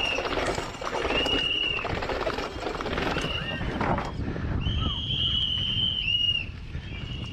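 Mountain bike disc brakes squealing in repeated high-pitched squeals, each about half a second to a second long, over the steady rumble of wind and tyres and the clatter of the bike hitting steps and bumps.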